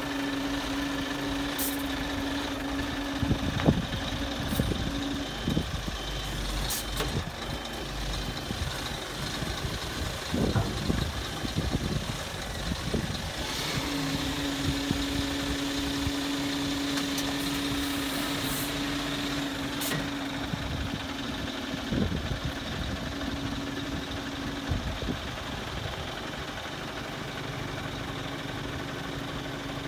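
Scania G480 truck's straight-six diesel idling while its hooklift hydraulics work the hook arm. A steady whine sounds for the first few seconds and again through the middle, with a few sharp metal clanks.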